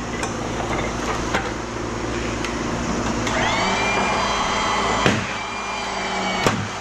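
Motor-driven press running with a steady machine hum. About three seconds in a higher whine rises and holds, and sharp metallic knocks come about a second in, about five seconds in and near the end as small transformers are pressed apart.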